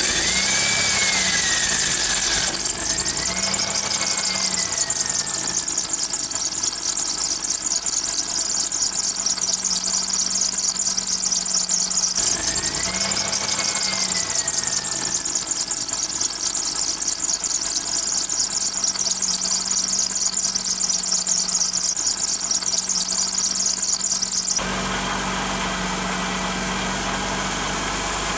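Alternator drive belt squealing on a running car engine, a sign that the belt has got wet. A steady high-pitched squeal with a wavering tone that rises and falls twice over the engine. A few seconds before the end the squeal stops abruptly, leaving the engine idling.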